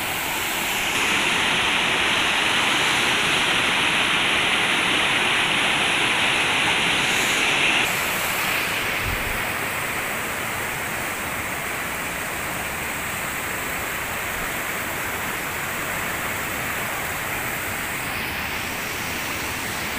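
Steady rush of a mountain river pouring over boulders in white-water rapids, louder for the first several seconds and a little softer from about eight seconds in.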